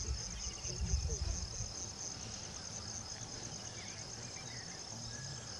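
Steady chorus of crickets, a high, finely pulsing trill, with a low rumble during the first second and a half.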